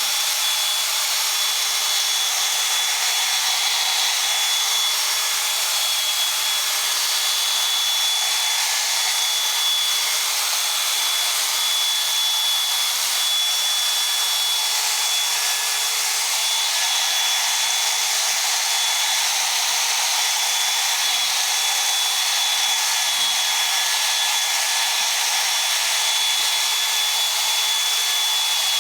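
Electric power tool running steadily with a high motor whine, sanding a plastic headlight lens with 2000-grit abrasive.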